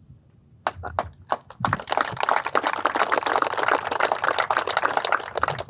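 A small crowd applauds. A few scattered claps come first, then about two seconds in they build to steady clapping, which dies away at the end.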